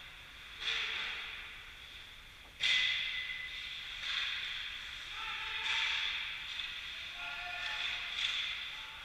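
Ice rink sound during an ice hockey game: hockey skate blades scraping the ice in several hissing swishes, each starting suddenly and fading over about a second, the sharpest about two and a half seconds in. Faint distant shouts come through in the second half.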